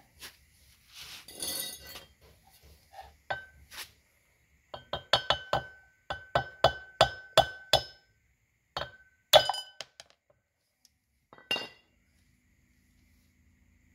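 Hammer knocking the broken wheel stud out of a Perodua Viva's rear brake drum hub. A quick run of sharp metal-on-metal blows, about three a second, each ringing briefly, is followed by one harder blow and then a last strike.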